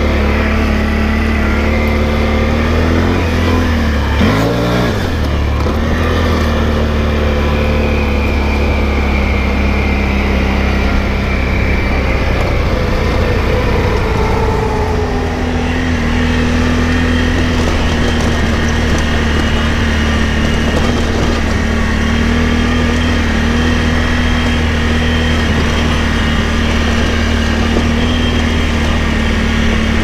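Can-Am Outlander ATV engine running under way as the quad is ridden, its pitch dipping and climbing again about four seconds in, then falling and settling into a steady drone about halfway through.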